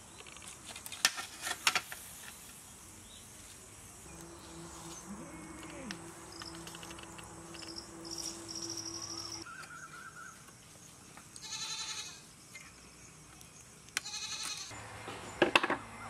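Metal skewers clattering against a steel platter in a few sharp clinks, about a second in and again near the end. In between come a couple of short animal bleats in the background.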